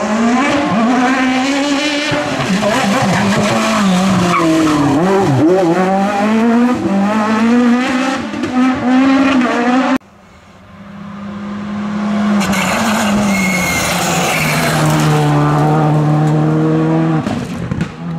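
Rally car engines on a tarmac special stage. In the first part, one car's engine revs up and down repeatedly as it brakes and accelerates through a hairpin. After a sudden cut, another rally car approaches, its engine growing louder, then holding a steady pitch as it passes.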